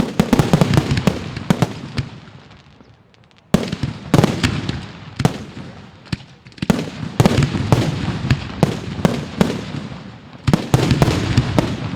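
Daylight fireworks going off in quick volleys of sharp bangs and cracks, in three waves that each thin out before the next one starts.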